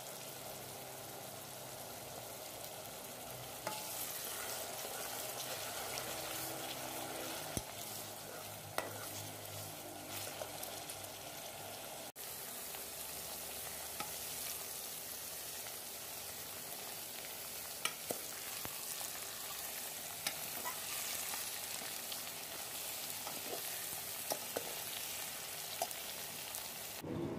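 Sliced onions sizzling in hot oil in a steel pot, stirred with a steel ladle that clicks against the pot now and then. After a cut about twelve seconds in, small potato pieces fry and sizzle in the oil, stirred the same way.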